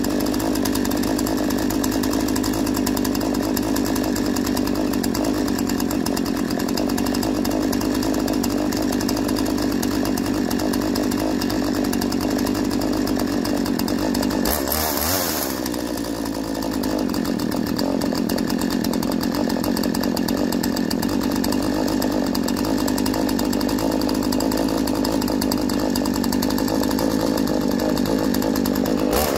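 Husqvarna 236 X-Torq two-stroke chainsaw engine running steadily with the chain out of the wood. Its note dips briefly about halfway through, then settles back to the same steady running.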